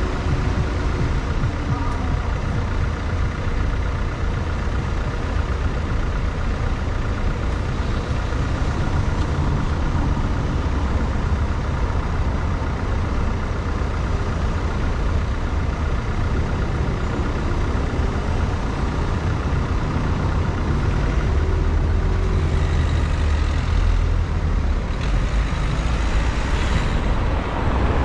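Steady engine and road noise of a car driving through city streets, with the sound of traffic around it.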